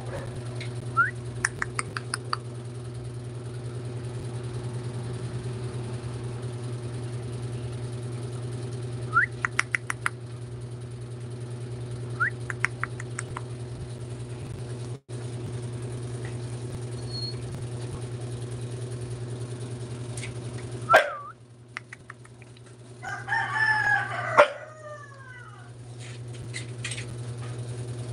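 A steady low hum, with a few short high chirps and, in the last part, a longer wavering animal call lasting about a second and a half while the hum briefly drops out.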